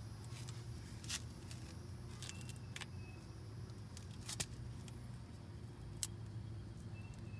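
A few sharp clicks and light ticks from a hand working at the top of a brake caliper, taking off a cover, over a steady low background hum.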